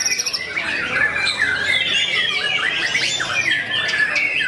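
White-rumped shamas singing: a dense, unbroken stream of rapid, varied whistles and chirps, several birds overlapping one another.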